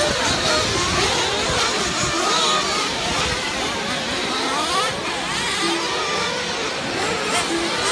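Several 1/8-scale radio-controlled race buggies' small motors whining, overlapping, each pitch rising and falling as the cars speed up and slow down around the track.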